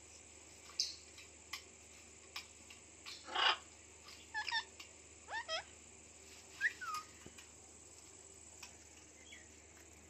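Indian ringneck parakeet giving short, scattered chirping calls that glide up and down in pitch, with a louder, harsher squawk about three and a half seconds in.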